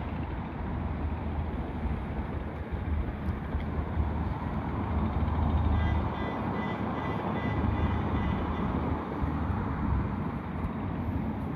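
Boeing 777-200 jet airliner's engines on landing approach: a steady rushing roar with a deep rumble, growing loudest about five to six seconds in, with a faint high whine for a few seconds after that. Wind on the microphone.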